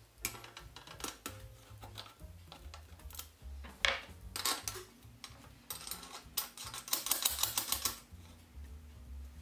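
Small metal clinks and knocks as brass lamp parts, a tube, washer and nut, are handled and fitted onto a threaded rod. Past the middle comes a quick run of rattling ticks for about two seconds as a nut is spun down the threaded rod.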